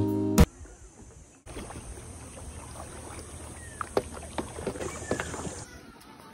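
Background guitar music cuts off about half a second in. Then comes quiet outdoor ambience from a bamboo raft on a lake: soft water noise with a steady hiss and a few light clicks.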